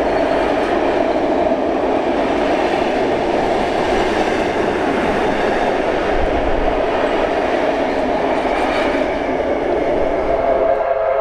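Heritage red passenger carriages of a steam-hauled train rolling past on an elevated track, their wheels running steadily over the rails.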